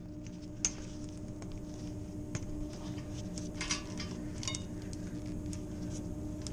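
Scattered light clinks and rustles as gloved hands work rope and chain around metal ceiling hanger rods to strap up a valve, over a steady low hum.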